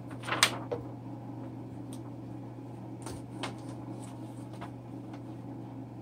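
A sheet of typing paper rustles as it is handled about half a second in. A few faint clicks follow as the paper is loaded into a 1929 Royal 10 typewriter.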